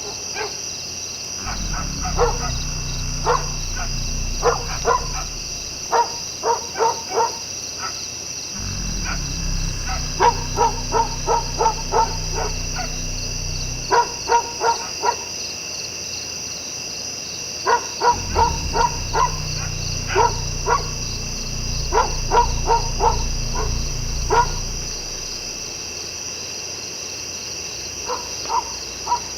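Short, pitched animal calls in quick runs of three to six, repeating every few seconds, over a steady high-pitched drone and an on-and-off low rumble.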